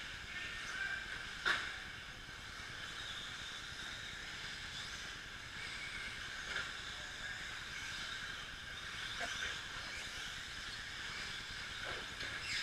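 Electric 2WD short course RC trucks racing on a dirt track: high-pitched motor and gear whine rising and falling as the trucks pass, over a steady hiss, with a sharp knock about a second and a half in.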